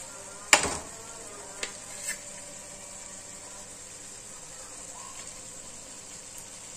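A single sharp knock about half a second in and two lighter clicks a second or so later: kitchen handling at a cooking pot on the hob as a cream carton is brought over it. A steady high-pitched whine runs underneath.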